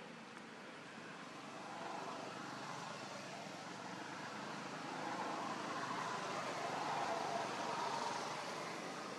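Steady rushing outdoor background noise that grows louder from about two seconds in, peaks a little before the end and then eases.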